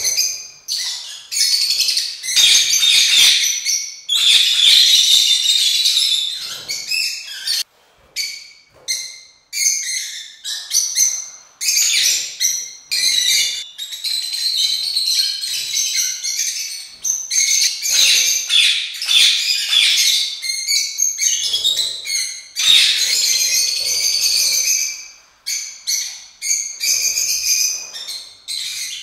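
A flock of peach-faced lovebirds (Agapornis roseicollis) chirping and calling over one another, shrill and nearly continuous, with a short lull about eight seconds in.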